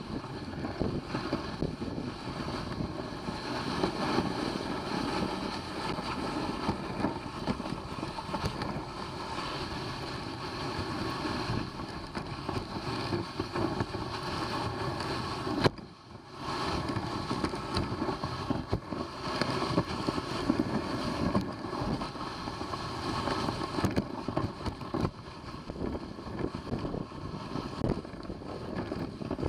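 Steady rushing noise of a dog sled moving along the trail, with wind on the microphone; it dips briefly about sixteen seconds in.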